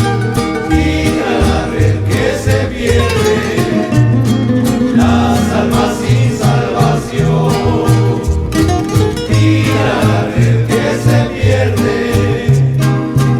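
Rondalla-style string ensemble music: strummed and plucked guitars over a steady bass line, with voices singing together.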